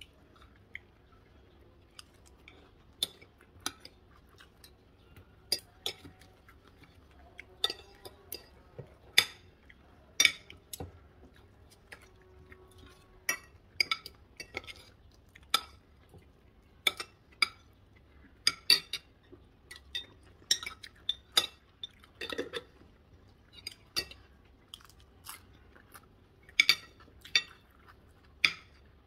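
Metal spoon and fork clinking and scraping against a white ceramic plate while food is cut and scooped, in sharp irregular clinks about one or two a second.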